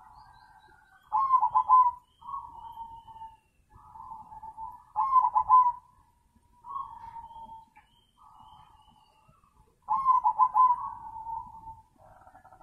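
Caged zebra doves (perkutut) cooing. Three loud song phrases, each opening with quick rolling notes, come about every four to five seconds, with softer coos between them.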